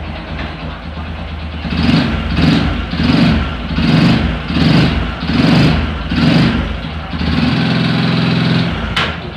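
Honda Supra 125's single-cylinder four-stroke engine blipped about seven times, then held at a steady higher rev, in first gear with the rear brake holding the wheel. A rough noise is still there with the clutch plates held still, which the mechanic takes as the sign of a worn connecting rod and crankshaft bearing rather than the clutch. A sharp click sounds near the end.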